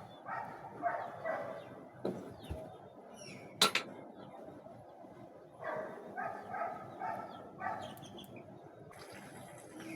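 A dog barking in short repeated barks, one run near the start and another about six seconds in, with a single sharp click or knock just under four seconds in.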